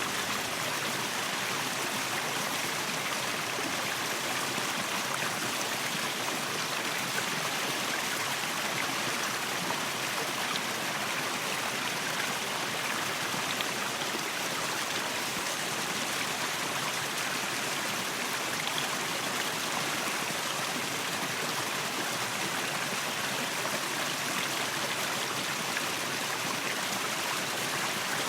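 Waterfall: a steady, even rush of falling water, mostly hiss with little low rumble.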